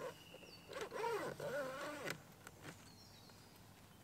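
Faint animal calls, likely birds: a wavering call from about a second in to two seconds, with thin, short high calls around it. A few clicks and knocks from the rolled tent being handled on the roof rack.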